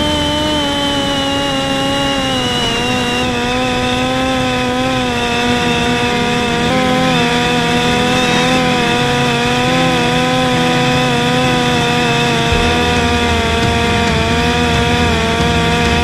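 Parrot Disco drone's brushless electric motor and rear pusher propeller in flight, a steady buzzing whine of stacked tones that drops a little in pitch a few seconds in as the throttle eases back. Wind rumble underneath grows stronger near the end.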